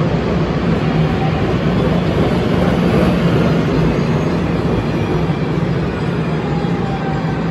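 DART light rail train running past close by: a steady, loud rail noise with a low hum underneath.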